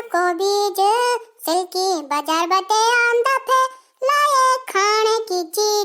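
High-pitched, child-like cartoon voice singing short held and gliding phrases, with a brief break about four seconds in.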